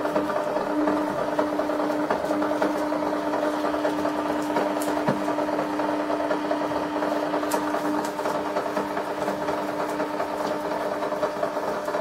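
Sharp XE-A203 cash register's thermal receipt printer running continuously, feeding out a long printed report, with a steady motor hum and buzz. A few faint paper rustles come from the printout being handled.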